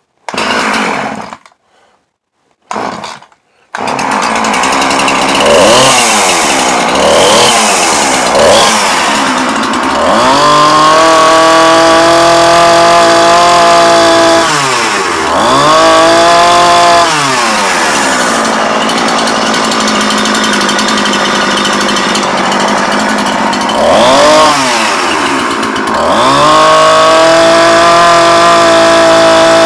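Two-stroke chainsaw being pull-started with the choke on, catching after a few short pulls about four seconds in. It then runs steadily and is revved up and back down several times, being tested with a newly fitted bar.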